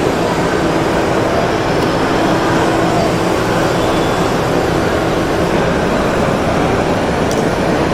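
A vehicle engine running steadily, a loud, even rumble that does not change.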